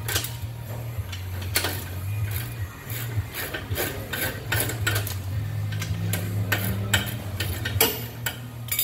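Ratchet wrench clicking in irregular short runs, with metal tools clinking, as the nut on a minivan rear shock's lower mounting bolt is worked loose. A steady low hum runs underneath.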